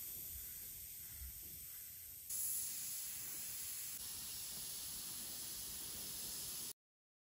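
Airbrush spraying paint: a steady, high hiss of compressed air, which steps louder about two seconds in and stops abruptly near the end.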